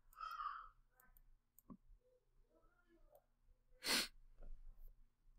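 A person's breath sounds close to the microphone: a faint short voiced sound near the start and one brief breathy exhale or sigh about four seconds in, over near silence.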